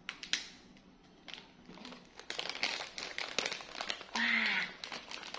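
Crinkling and crackling of a stiff plastic wrapper on a box of pastries, picked at and pulled by hand. A brief voice-like sound comes about four seconds in.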